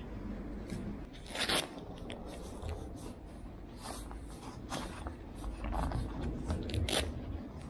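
Irregular handling noise: rustles and short scrapes, with the sharpest about a second and a half in and again near the end.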